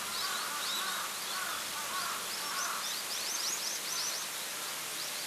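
Seasonal snowmelt waterfall, overflow from a spring well, splashing steadily, with birds calling over it: quick high chirps for the first few seconds and lower calls in the first half.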